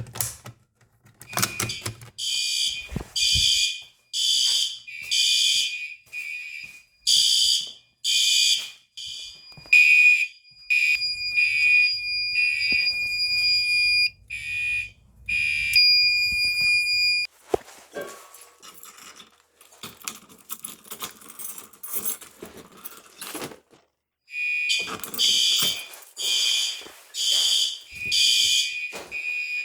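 Fire alarm sounding during a test, mostly in short loud blasts about once a second. In the middle it changes to a held tone for several seconds. Then for several seconds only irregular noise is heard before the blasts start again.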